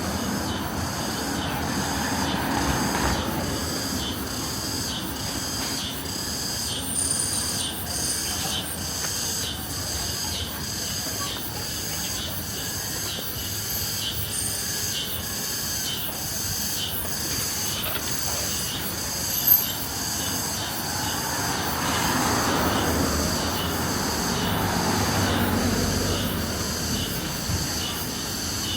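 Street ambience: a steady high hiss with a faint, even pulse about one and a half times a second. A vehicle passes about three-quarters of the way through.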